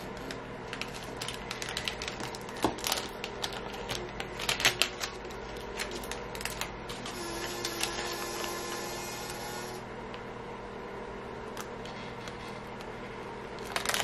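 Scattered light clicks and taps from hands handling small vinyl cutouts and a ceramic mug on a craft table, over a steady faint hum. A louder burst of handling noise comes right at the end as the hands take hold of the mug.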